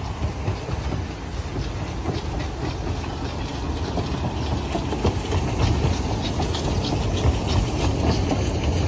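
Narrow-gauge park-railway steam locomotive and its wagons rolling past close by, with a low rumble and wheels clicking and clattering over the rail joints and points. The clicks grow louder and more frequent from about halfway, as the wagons go by.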